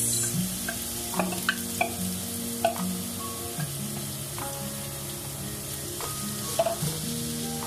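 Chopped onion sizzling in hot oil in a frying pan as it is poured in and then stirred with a wooden spoon, the sauté's first stage. The sizzle flares as the onion hits the oil at the start and then runs steadily, with a few light clicks.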